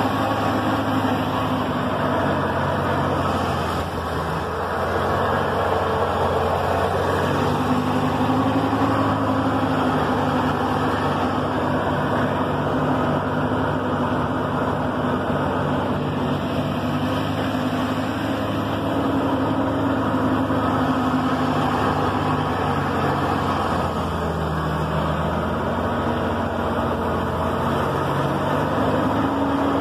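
Car engine running under load from inside the cabin as the car climbs a gravel road, with steady road noise. The engine note drops and rises again twice, about four seconds in and about twenty-four seconds in.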